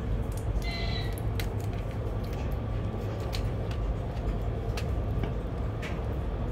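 ES2G "Lastochka" electric train running at speed, heard from inside the carriage: a steady low rumble with scattered light clicks and knocks. A brief high chirp sounds about half a second in.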